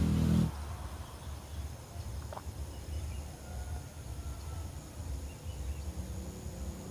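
Outdoor ambience: a low rumble with faint, steady, high-pitched insect chirring over it, and a faint short call about two to three seconds in.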